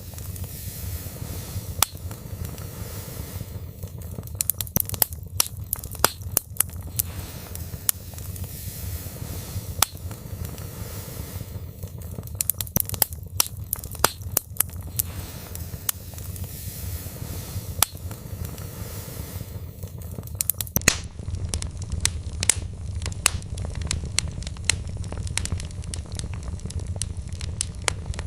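Wood fire burning in a fireplace: irregular sharp pops and snaps from the logs, coming in flurries every several seconds, over a steady low rumble of the flames.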